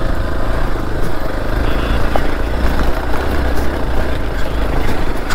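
Hero Xpulse 200's single-cylinder engine running steadily at low revs, a continuous low rumble.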